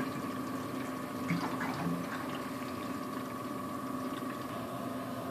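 Steady background hum of running machinery, with a faint high whine held on one pitch over a soft hiss.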